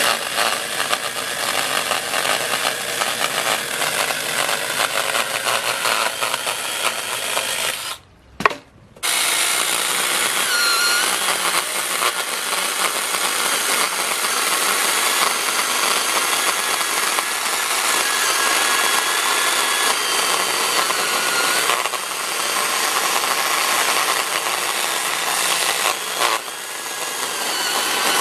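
Parkside 12-volt cordless mini chainsaw running and cutting through a dry, fairly hard maple branch, the chain chewing through the wood with a steady motor whine. It cuts out for about a second around eight seconds in, with one click, then runs on.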